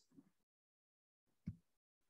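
Near silence, with one short faint low sound about one and a half seconds in.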